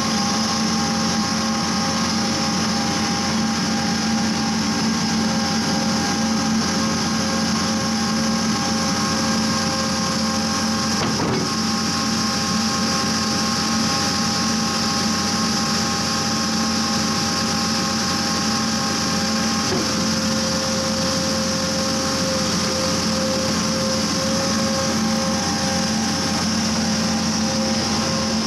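Vermeer D80x100 horizontal directional drill running steadily under load, its engine and hydraulics giving a constant drone with a steady multi-note whine. A single short click about 11 seconds in.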